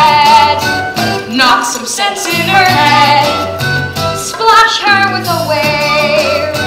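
Middle school students singing a stage musical number with vibrato, over instrumental accompaniment with sustained bass notes.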